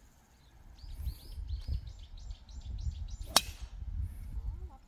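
A golf club striking a ball: one sharp crack about three and a half seconds in. Before it, a run of short high chirps repeats about four times a second, over a low rumble.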